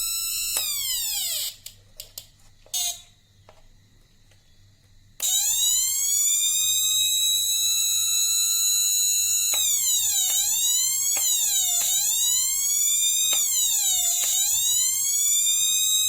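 Electronic siren tone from a two-transistor BC547/BC557 siren circuit, buzzy and loud. It glides down and stops about a second and a half in, leaving a few clicks. About five seconds in it starts again and slowly climbs to its top pitch, then from about ten seconds in it falls and rises again roughly once a second, in a police-style wail.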